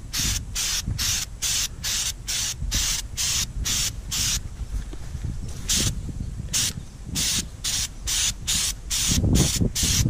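Aerosol spray can of Flex Seal sprayed in short spurts of hiss, about two or three a second, as a coat goes onto a seat. There is a pause of about a second and a half near the middle before the spurts resume.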